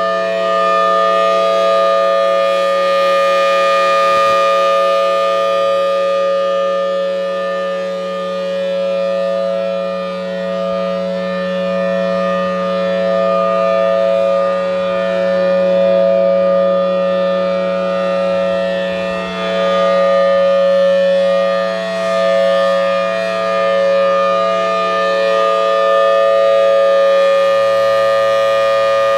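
Federal Signal Thunderbolt 1003 dual-tone civil defense siren sounding a steady full-alert tone at a held pitch. It gets louder and softer every few seconds as the rotating head sweeps around.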